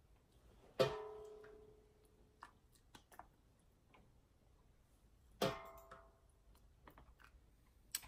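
A stainless steel ladle clinking against the rim of an enamelware pot while dipping out hot brine, two strikes about four and a half seconds apart, each ringing and fading over about a second, with a few faint ticks between.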